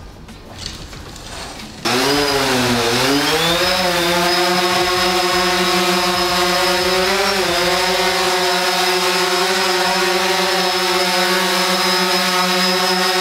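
Quadcopter drone's propellers buzzing: the sound starts suddenly about two seconds in, dips and rises in pitch as the motors change speed, then holds a steady hover pitch.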